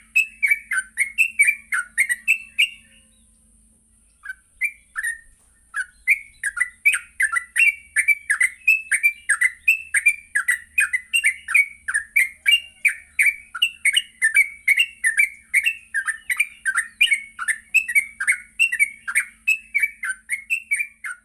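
Yellow-vented bulbul (trucuk) singing a fast, continuous run of short down-slurred notes, about three a second, pausing briefly about three seconds in and then resuming.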